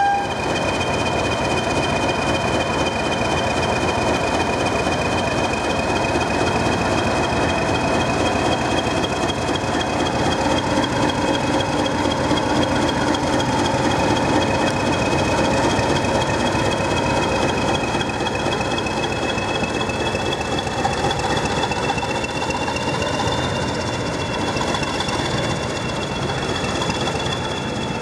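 Class 20 diesel locomotive's English Electric eight-cylinder engine running, with a steady high turbocharger whistle over the engine note as the locomotive moves slowly off. The sound eases slightly near the end.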